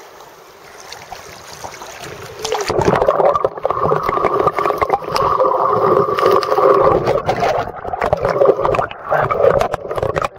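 River water heard through a camera microphone pushed underwater: a light rush of the current, then about two and a half seconds in a sudden loud, muffled churning and bubbling of water against the microphone, with many small crackles.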